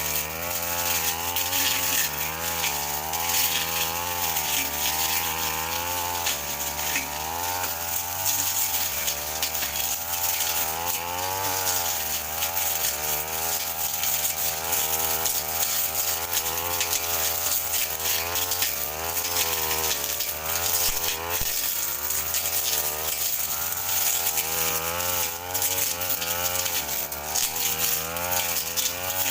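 Brush cutter engine running at high speed while clearing bush and alang-alang grass, its pitch wavering up and down about once a second as the blade swings through the growth.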